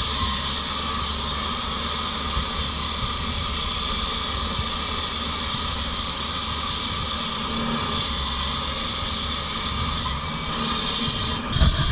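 Engine-driven walk-behind flat saw running steadily while its water-cooled diamond blade cuts through asphalt, a constant engine drone mixed with the blade's grinding hiss. The sound changes abruptly with a louder jolt just before the end.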